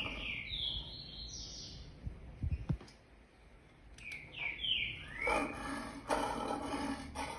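Birds chirping in quick, short falling notes, played from a wildlife sound recording through a device's speaker. About five seconds in, a low, drawn-out call begins and runs for about two seconds.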